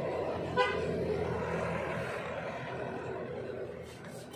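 Suzuki K6A three-cylinder engine idling steadily, with one short horn-like toot about half a second in.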